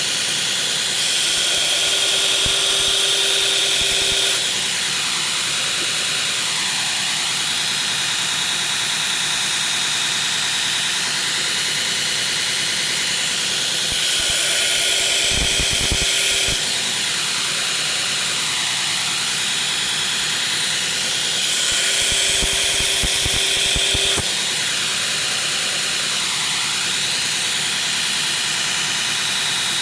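Belt grinder running on a worn 36-grit belt while the bevels of a pocket knife blade are ground. Three passes of the blade against the belt, each about three seconds long, about a second in, near the middle and about two-thirds through, make the sound louder with a steady higher grinding tone.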